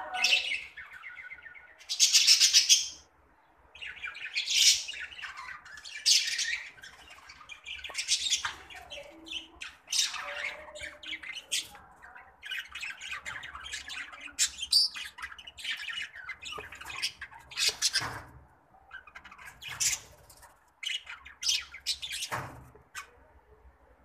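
Budgerigars chattering and squawking: many short, sharp, high calls in irregular bursts, with a loud squawk about two seconds in.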